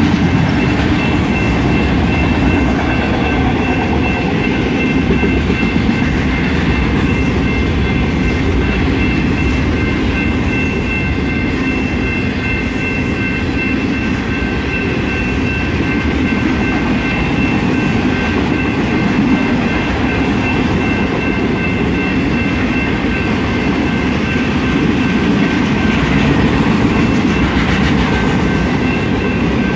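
Freight train passing at speed: the steady rumble and clickety-clack of autorack cars rolling over the rails. A thin steady high ringing tone sits over the rumble and fades out about three-quarters of the way through.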